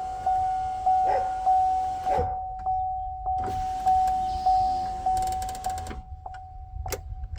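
Chevy Cruze power window motor driving the new window regulator in two spells of a few seconds each. Through it, the car's warning chime dings steadily, about twice a second.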